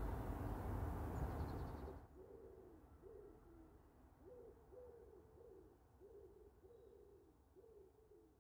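A steady outdoor rumble and hiss cuts off about two seconds in. Quiet follows, with pigeons cooing softly, a run of low coos about two a second.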